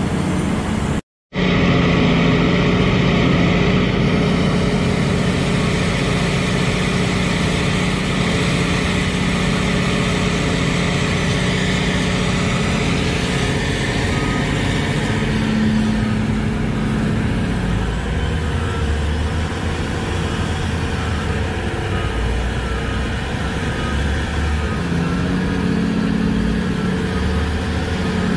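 Heavy mining machinery running steadily and loudly: the big diesel engines of a hydraulic mining excavator and haul truck at work. The sound cuts out completely for a moment about a second in.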